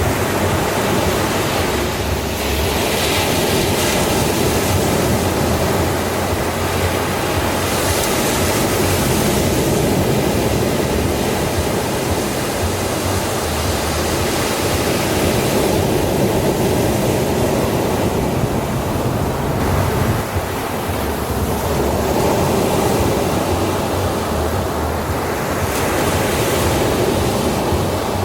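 Ocean surf washing onto a sandy beach: a steady rushing hiss that swells and eases gently every few seconds as the waves break and run up the sand.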